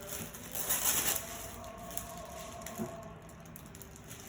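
Gift wrapping or packaging rustling and crinkling in hand as a present is opened, loudest about a second in, then fainter.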